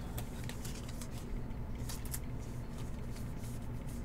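Faint rustling and light clicks of trading cards being handled and slid against one another, over a steady low hum.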